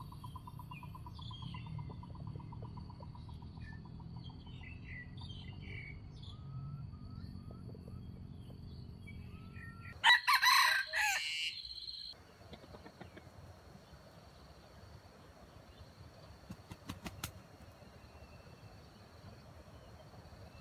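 A red junglefowl rooster, the trapper's bait bird, gives one short crow of about two seconds roughly halfway through; it is the loudest sound. Small birds chirp in the background before it.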